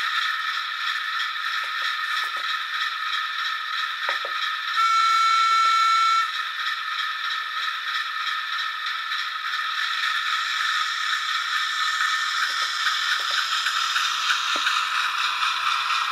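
OO gauge model locomotive running on track: a steady high motor whine and wheel rumble, with light clicks over the rail joints. About five seconds in, a loud, high, steady tone sounds for about a second and a half.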